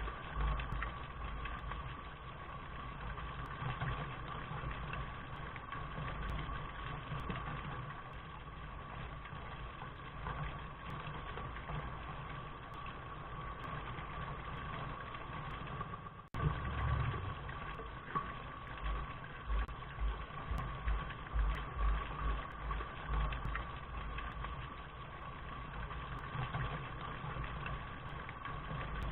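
Steady rain hiss with an uneven low rumble underneath. The sound cuts out for an instant about sixteen seconds in, then resumes.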